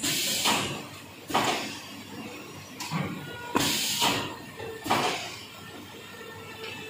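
Automatic L-sealer shrink-wrapping machine and shrink tunnel at work: about eight sharp hissing, clattering bursts at uneven intervals of roughly half a second to a second and a half, over a steady machine background.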